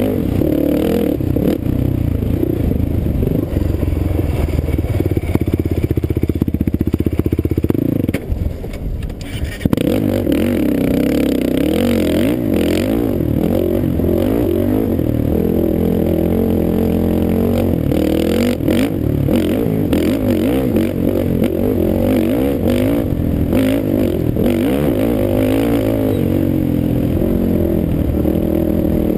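Kawasaki KFX450R sport quad's single-cylinder four-stroke engine running hard under way on a dirt trail, its pitch wavering with the throttle. About eight seconds in it briefly drops off, then picks back up sharply.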